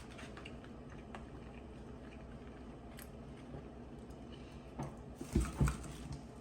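A man chewing food close to the microphone: quiet wet mouth sounds and small clicks, with two louder, short low sounds close together about five seconds in.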